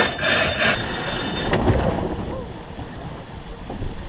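Sailing yacht's sheet winch being cranked by hand, its ratchet clicking rhythmically with a squeal as the line comes in. The grinding stops under a second in, leaving a lower, even rush of noise.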